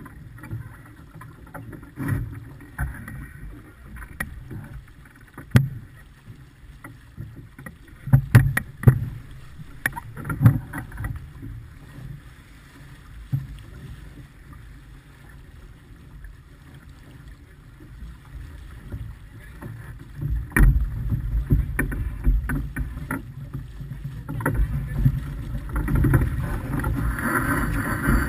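Sailing yacht under way: water rushing along the hull and wind on the microphone, with scattered sharp knocks from the boat. The rushing grows louder from about two-thirds of the way through.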